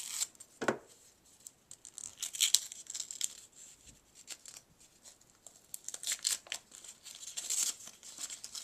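Sticker packaging being torn open and crinkled by hand, in irregular bursts, strongest about two to three seconds in and again from about six to eight seconds.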